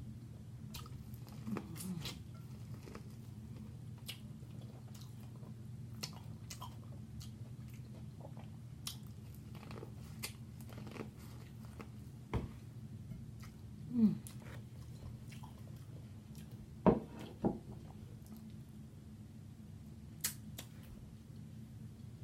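Close-up chewing and mouth sounds of a person eating a seafood boil: soft crunches and small wet clicks over a steady low hum, with a few louder knocks around the middle.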